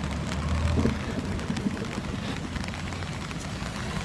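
Steady rain falling, an even hiss with scattered small drop ticks, over a steady low rumble.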